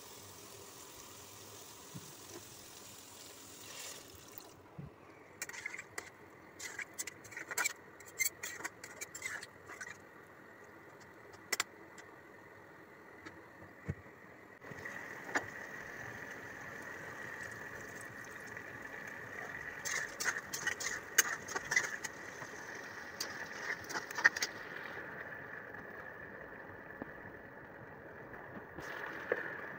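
A spoon scraping and clicking against a cooking pot while stirring a thick chicken and soya chunk curry, over a steady hiss. The clicks come in two busy spells, one about five to twelve seconds in and one about twenty to twenty-four seconds in.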